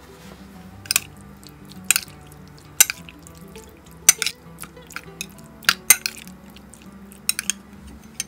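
Metal spoon clinking against a ceramic bowl while stirring raw chicken pieces: sharp clinks about once a second, some in quick pairs.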